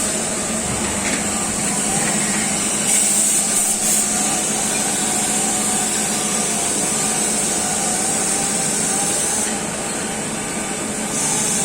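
Mori Seiki AL-2BM CNC lathe running, a steady machine noise with a high hiss over it. The hiss grows louder about three seconds in, drops away near the end, then returns.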